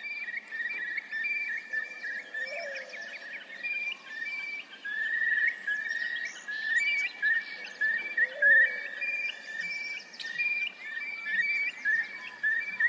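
Wetland chorus of many calling animals: dense, rapidly repeated short chirps overlapping throughout, with a lower call that rises and falls twice, about two and a half and eight seconds in.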